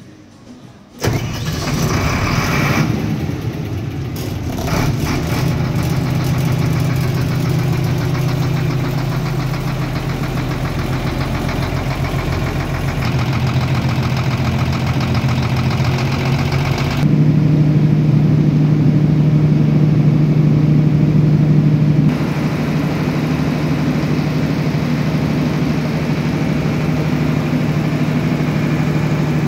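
Six-cylinder turbocharged diesel engine of a Tsuzumi TDG-250 kVA silent-type generator set cranking and starting about a second in, then running with a steady low hum. It is louder for a few seconds past the middle.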